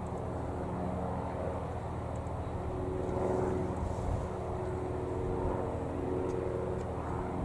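Boeing 747-400 jet engines running at low taxi power: a steady drone with several held tones, swelling a little about three seconds in.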